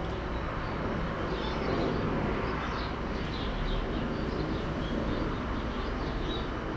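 Crowd noise in a fight venue: a steady murmur of many voices with scattered faint shouts.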